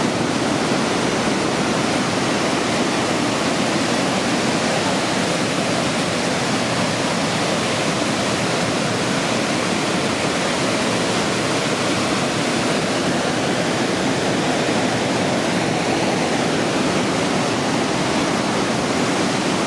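Waterfall crashing into a canyon pool: a loud, steady, unbroken rush of water.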